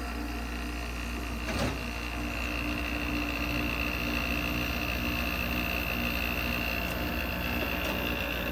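1984 GE Quiet Air window air conditioner, with an R&M blower cage and fan blade, running on low cool just after startup: a steady low hum and fan air noise with a steady high whine. A short click comes about a second and a half in.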